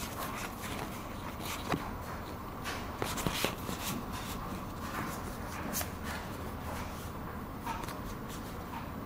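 Pokémon trading cards handled and flicked through by hand: soft rustling of card stock with scattered light clicks as the cards slide past one another.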